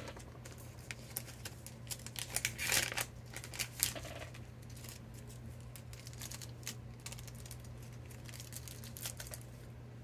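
Faint crinkling and clicking of a small clear plastic parts package being handled, mostly in the first four seconds, over a steady low electrical hum.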